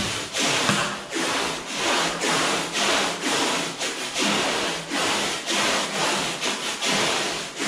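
Adhesive tape rubbed and pulled against a new paint roller's pile, a rasping rub repeated about every half second. It is stripping the loose fibres off the roller cover before use.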